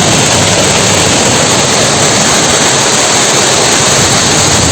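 Small waterfall's water rushing in a steady, loud hiss.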